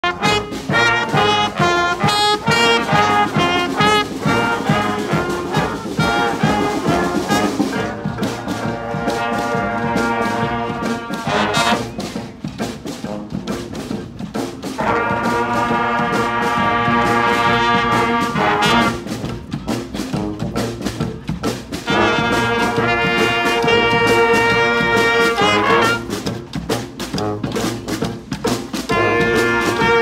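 A brass street band of trombones, trumpets, clarinets and saxophone playing a rock tune on the march. Quick punchy repeated notes at first, then long held chords about halfway through and again later.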